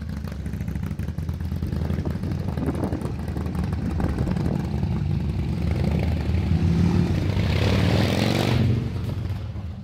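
2014 Harley-Davidson Fat Bob's V-twin running through newly fitted Vance & Hines 3-inch slash-cut slip-on mufflers, with a deep steady rumble. It swells louder with a rise and fall in pitch near the end, then fades.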